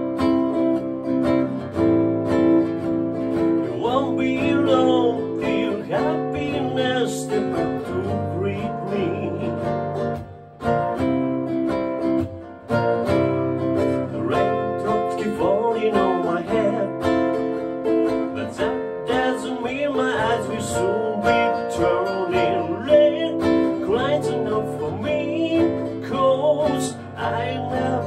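Headway electric nylon-string (elegut) guitar strummed and picked in a steady accompaniment, with a man's voice singing over it in phrases, and two short breaks in the playing near the middle.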